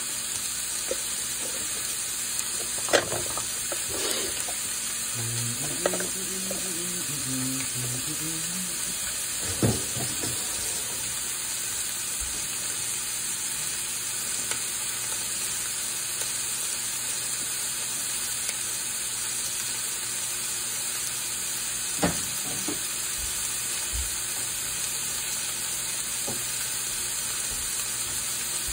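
Pork, bean sprouts and cabbage sizzling steadily in a frying pan, with a few sharp knocks about three, four and ten seconds in and again near twenty-two seconds.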